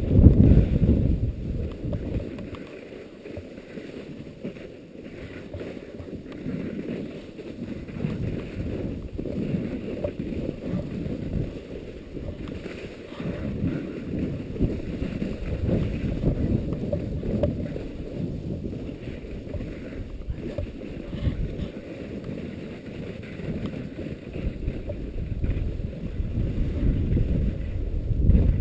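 Strong wind buffeting the camera's microphone: a muffled low rumble that swells and fades unevenly.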